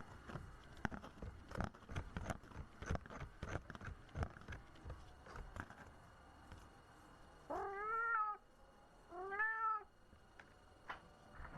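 A cat meowing twice, each call rising then falling in pitch, after a run of irregular clicks and taps.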